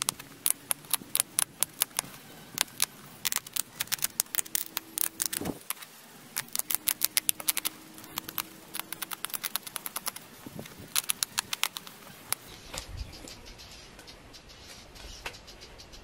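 Pressure flaking a flint arrowhead: a hand-held pressure flaker pressed against the edge, each small flake popping off with a sharp click, the clicks coming in quick runs and thinning out after about twelve seconds.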